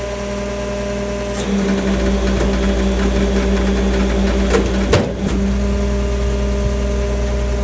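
Military truck's diesel engine running steadily under load, its note growing stronger about a second and a half in. A sharp metallic clank comes about five seconds in, from the tensioned chain and rigging.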